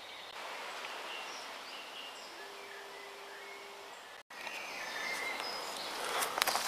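Woodland ambience: scattered short bird chirps over a steady hiss, with a steady low hum for about a second and a half in the middle. The sound cuts out briefly a little over four seconds in, and footsteps crunching on leaf litter begin near the end.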